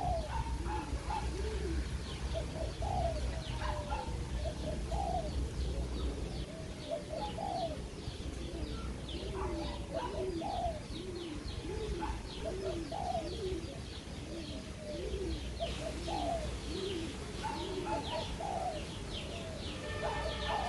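Spotted dove cooing, short coos repeated in quick succession, with small birds chirping high above it.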